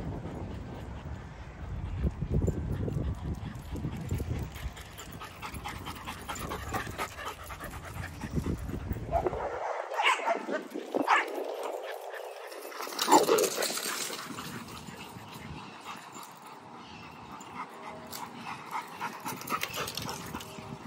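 Dogs barking a few times about halfway through, the loudest near the middle. In the first half a low rumble of wind sits on the microphone.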